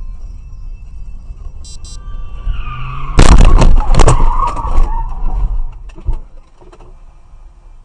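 Road traffic collision: tyres squeal in a skid, then a sudden loud crash about three seconds in, with about two seconds of crunching impacts and a smaller knock a little later.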